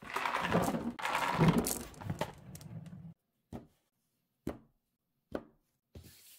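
A plastic Fisher-Price toy dump truck's bed is tipped up by its red lever, with a dense, rattling clatter lasting about three seconds. After that come four single knocks about a second apart as wooden blocks are set down on a table.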